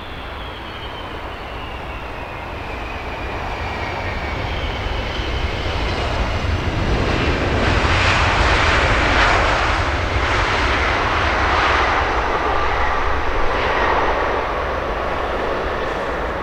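Jet airliner on final approach passing close by: a high engine whine falls in pitch as it nears, and the engine noise swells to its loudest about halfway through, then eases off.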